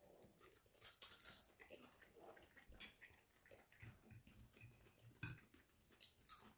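Faint chewing of a forkful of chicken and pea pods, with a few soft clicks of a fork against a dish.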